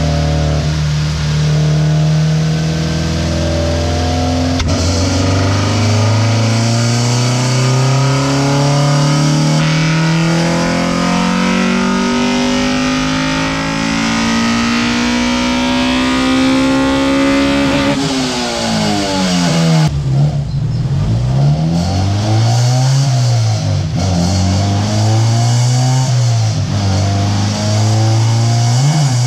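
Honda B16A2 1.6-litre DOHC VTEC four-cylinder, breathing through a big-tube race header, making a wide-open-throttle pull on a chassis dyno. The engine note climbs steadily for about fourteen seconds, drops sharply as the throttle is shut, then rises and falls in several shorter revs.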